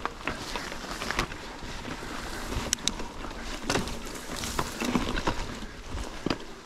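Mountain bike ridden over a dirt trail: tyre noise on the ground with frequent irregular clicks and rattles from the bike, and wind rumble on the chest-mounted microphone.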